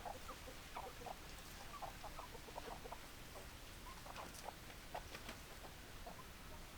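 Chickens clucking quietly, many short calls one after another.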